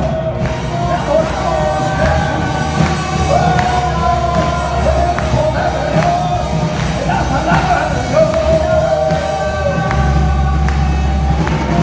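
Congregational worship music: a group of voices singing a slow, held melody over a band with a steady bass and beat.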